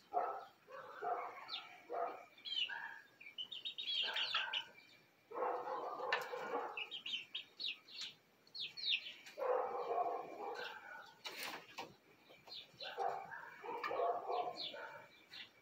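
Young chickens on a roost peeping and chirping in short, falling notes. Bursts of lower, rougher calling come about every three to four seconds.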